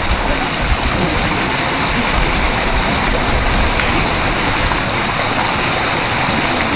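Steady rushing and sloshing of pond water, stirred up by a person wading through it.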